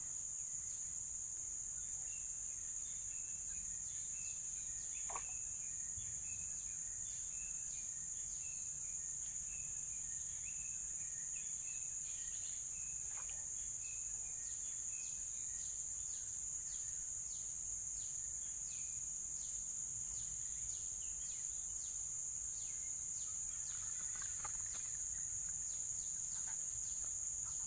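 Steady high-pitched drone of insects, with a bird repeating a short chirp about once or twice a second through the first half.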